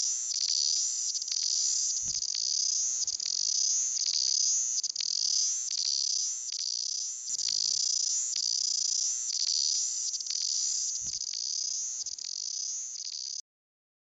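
Chorus of cicadas singing, a loud high-pitched metallic buzz that swells and fades in a regular pulse about every two-thirds of a second. It cuts off suddenly near the end.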